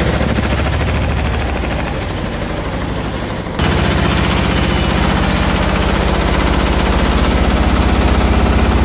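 Samsung front-load washing machine, with a dryer stacked on top, running and shaking violently: a fast, loud banging rattle that gets suddenly louder about three and a half seconds in. The cause was shipping bolts left in by the installers, which the owner found was what made it shake.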